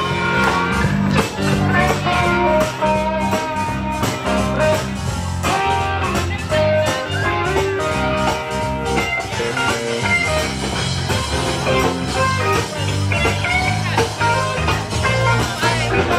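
Blues-style band music led by guitar over a bass line, cutting in suddenly at the start.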